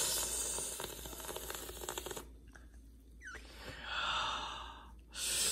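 A spatula stirring dry flour into a wet bread dough in a stainless steel bowl: a rough, scratchy scraping through the flour and against the metal, strongest over the first two seconds, then a softer stretch of stirring and a last bit of scraping near the end.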